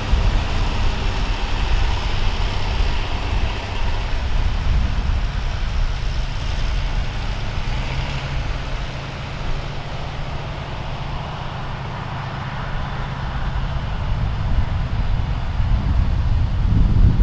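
A vintage farm tractor engine running steadily, with a low rumble that eases a little midway and builds again near the end.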